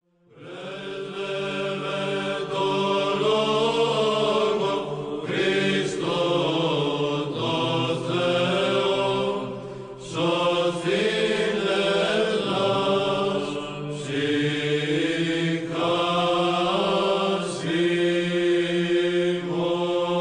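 Choral church chant: voices sing a slow melody in long held notes over a low held drone, fading in at the start.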